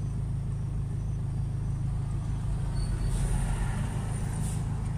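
Steady low hum of a car idling in a stopped traffic queue, heard from inside the cabin. A large vehicle passes in the oncoming lane, swelling louder from about three seconds in and fading out near the end.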